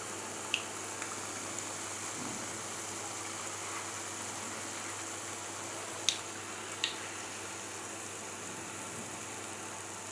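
Hot oil sizzling steadily in a kadai as battered raw banana slices (bajji) deep-fry, with a few short sharp clicks about half a second in and twice around six to seven seconds in.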